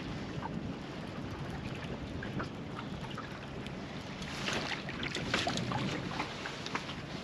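Small fishing boat drifting at sea: wind on the microphone and water moving against the hull, a steady low rush. About four to six seconds in comes a run of short clicks and splashes.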